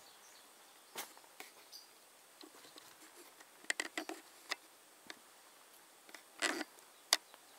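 Footsteps crunching and crackling over dry hay and broken debris on a floor, in short irregular crackles, a few bunched together about four seconds in and again near the end.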